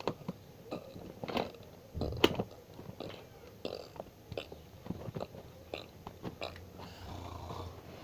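Scattered light clicks, knocks and rustles from someone moving about close to the microphone, with one sharper click about two seconds in.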